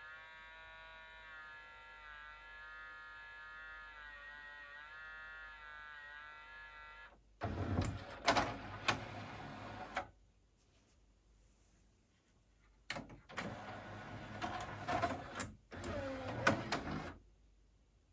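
Motor and gear mechanism of a Pioneer CLD-D504 LaserDisc player with a loading problem: a steady motor whine for several seconds, then two spells of whirring and clattering with clicks, each a few seconds long, with a quiet pause between them.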